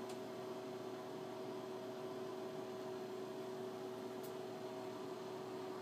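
Steady electrical hum made of two held tones over a faint hiss, with a faint click about four seconds in.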